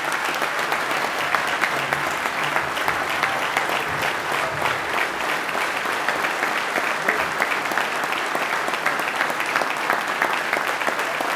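Audience applauding steadily in a standing ovation: many people clapping, a dense unbroken patter of hand claps.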